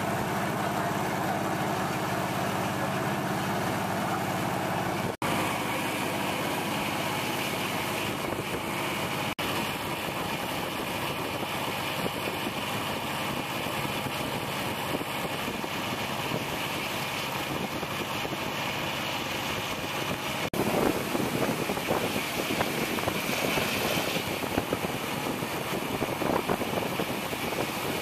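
A vehicle engine running steadily as it travels along, with wind buffeting the microphone more strongly in the later part.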